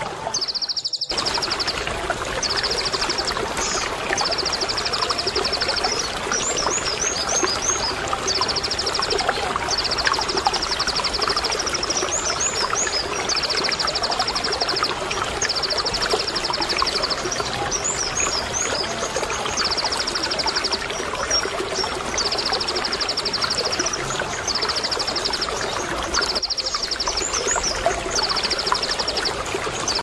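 A konin sunbird sings over the steady sound of running water. Its song is a row of high, rapid rattling trills, each about a second long, with quick chirps in between. The sound drops out briefly just after the start.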